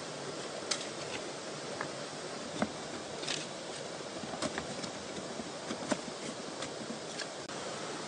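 Split bamboo slats knocking and clacking against each other as they are handled and fitted into a bamboo panel: a scattering of light, irregular knocks over a steady background hiss.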